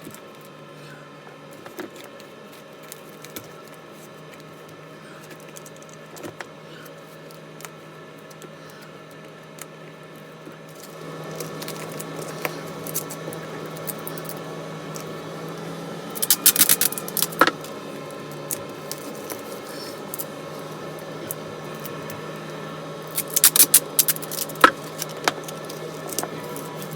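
A steady mechanical hum that gets louder about eleven seconds in, with two bursts of light metallic jangling and clicking, one in the middle and one near the end.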